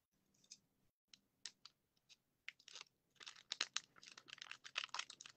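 Faint crinkling and crackling of plastic packaging handled by hands. It starts as a few scattered clicks and becomes dense crackling from about three seconds in.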